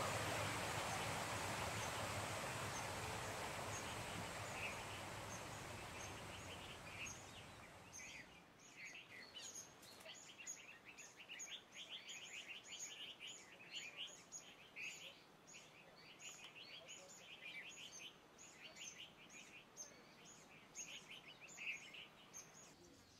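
Outdoor ambience: a steady rushing noise fades out over the first eight seconds or so. It leaves faint small birds chirping, with short trills repeating through the rest.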